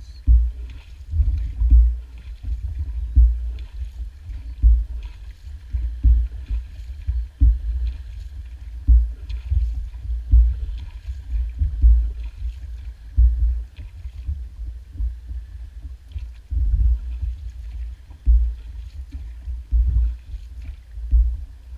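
A small boat being paddled by hand: a regular paddle stroke about every one and a half seconds, each with a low thump of water against the hull, over a low rumble.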